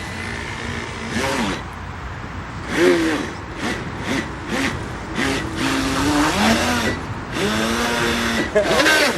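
Electric motor of a radio-controlled model whining in short throttle bursts, its pitch rising and falling and sometimes holding steady, with brief hissy bursts of water or gravel noise in between.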